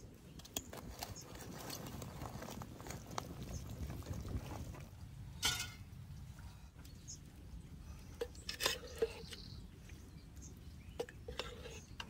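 Metal cookware and utensils clinking and knocking, a few sharp knocks with short metallic rings, the loudest about five and a half seconds in and a cluster around nine seconds, over a low steady rumble.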